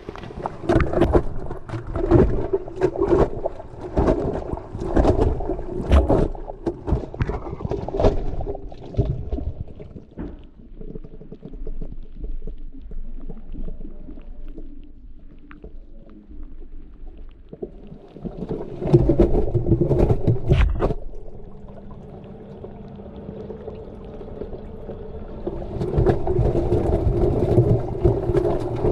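Washing machine drum tumbling its load in water, heard from inside the drum: sloshing with irregular knocks against the drum, which ease off for a while and then come back. A steady low hum joins in later, and a louder steady running sound takes over near the end.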